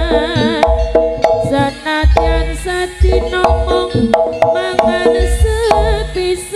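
Live jaranan ensemble music played loud through a sound system: sharp drum strokes and repeated low bass thumps under a wavering melody line with a wide vibrato.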